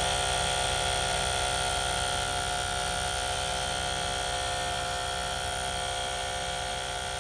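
Michelin 12264 compact 12 V tyre inflator's electric compressor running steadily as it pumps up a car tyre, a dense steady whine that gets gradually a little quieter.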